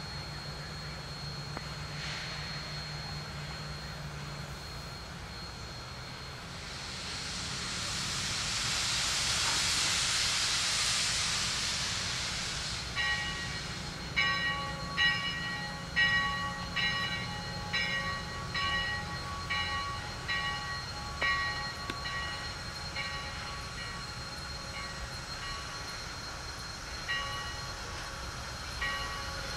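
Sierra Railway No. 3 steam locomotive letting off a long hiss of steam for several seconds, then its bell ringing steadily, a little more than one stroke a second, as the train moves.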